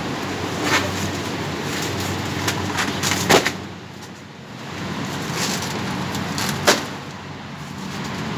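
Steady whooshing hum of a cold store's refrigeration fans, broken by a few sharp knocks about three seconds apart.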